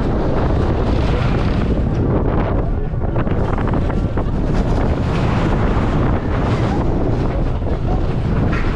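Loud wind buffeting the microphone: a steady rushing noise with a heavy low rumble.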